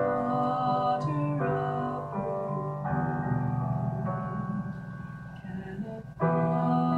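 Slow ballad in a minor key played on a Roland digital piano, a new chord struck every second or two, with a woman singing along. The sound dies down before a louder chord near the end.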